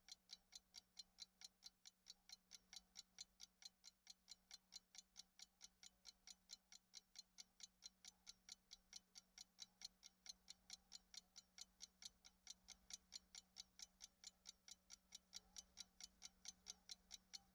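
Faint, evenly spaced ticking, about four ticks a second, over near silence and a faint steady hum.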